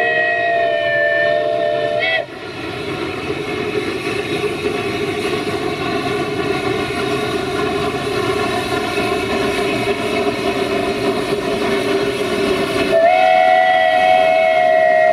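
Steam locomotive whistle sounding a long chord of several tones that breaks off about two seconds in. A steady noisy rush follows, and the whistle sounds again near the end.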